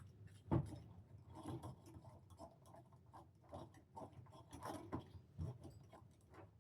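Faint irregular clicks and light taps of small metal engine parts and tools being handled during reassembly of a Traxxas 3.3 nitro engine, with one sharper knock about half a second in.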